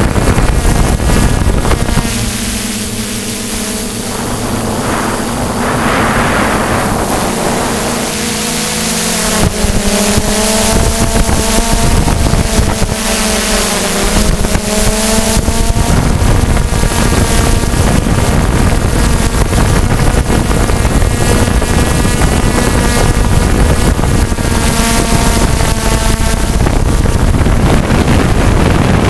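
DJI F550 hexacopter's brushless motors and propellers, heard from the onboard camera, running in flight with a buzzing whine whose pitch wavers as the throttle changes. Wind and propeller wash rush over the microphone; the sound eases for a few seconds near the start, then comes back up.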